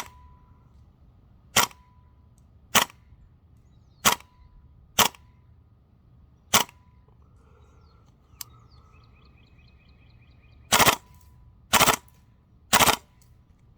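Tokyo Marui M4 CQB-R MWS gas blowback airsoft rifle firing single shots, each a sharp crack: six spaced one to one and a half seconds apart, then, after a pause, three more about a second apart.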